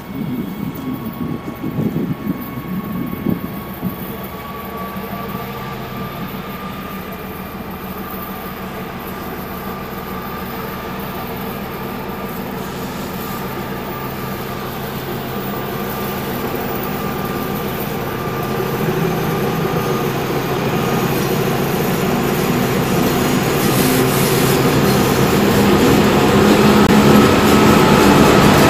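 2TE25K two-section diesel locomotive hauling a freight train, its diesel engines running with a steady hum and a high whine, growing steadily louder as it approaches.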